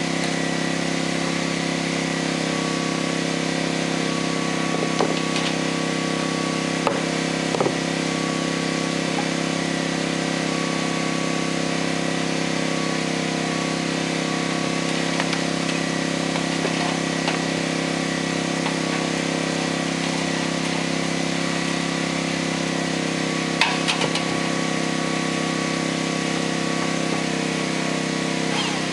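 A small engine runs steadily at one constant speed throughout. A few short sharp knocks come over it, about 5, 7 and 24 seconds in.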